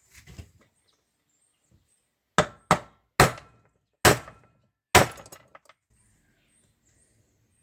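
Five hammer blows on metal, driving a rivet pin out of a Honda Bros 150 motorcycle clutch basket, each a sharp strike with a brief ring; the blows come unevenly over about two and a half seconds.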